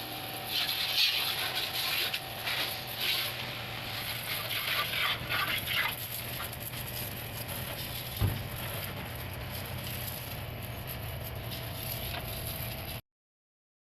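Small electric mini washer pump running with a steady hum, with an uneven hiss of water spray swelling on and off in the first half. There is a single knock about eight seconds in, and the sound cuts off abruptly shortly before the end.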